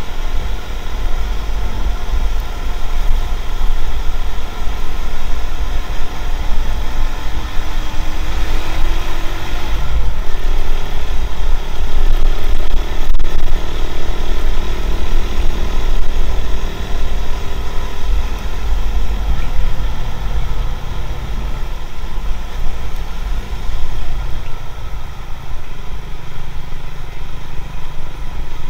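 Motorcycle riding noise: steady wind rumble buffeting an action camera's built-in microphone over the running engine and road noise.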